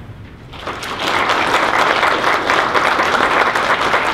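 Audience applauding in a lecture hall, starting about half a second in and building quickly to steady, sustained clapping.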